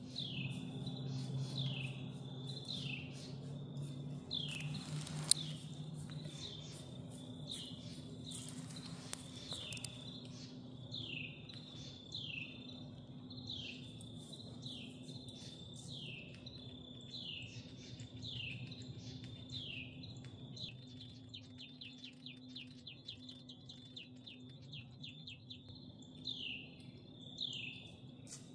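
A songbird repeats a short falling whistled note about once a second, over a steady high insect trill and a low steady hum. A stretch of fast ticking comes in the second half, and a single sharp click stands out about five seconds in.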